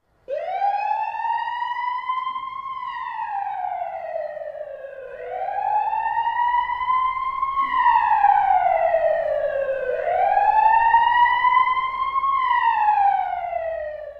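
A wailing siren, its pitch sweeping slowly up and then back down three times, each rise and fall taking about five seconds.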